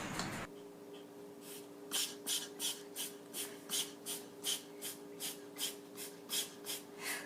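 A pet breathing in quick, hissy, evenly spaced puffs, about three a second, over a faint steady hum.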